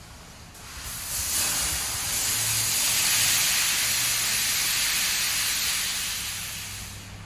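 High-pressure water spray from a Superior Sidetrac 700 touch-free car wash hissing against the car, swelling about a second in, holding loud, then fading near the end.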